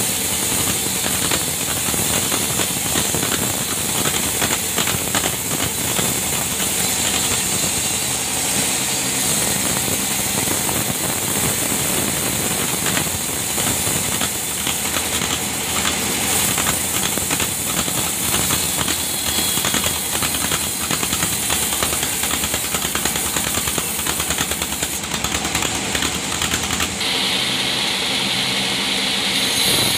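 Band sawmill running and cutting through a large log: a steady, loud mechanical drone with a hiss from the blade in the wood. About 27 seconds in, the sound shifts to a brighter hiss.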